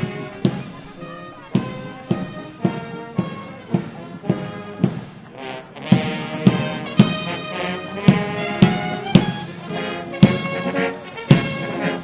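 Trumpet fanfare: brass playing a rhythmic figure with sharp hits on the beat, growing fuller and louder about halfway through.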